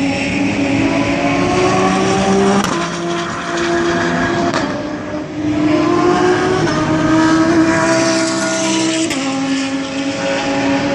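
GT race car engines accelerating hard, several cars at once, their notes climbing in pitch and dropping back at upshifts about two and a half, seven and nine seconds in.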